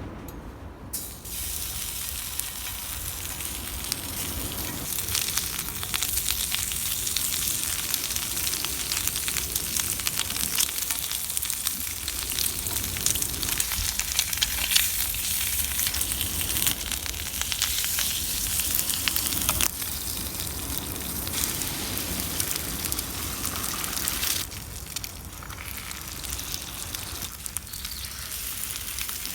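Food frying in a pan over a campfire: a steady sizzle with fine crackling that starts about a second in and eases off a few seconds before the end.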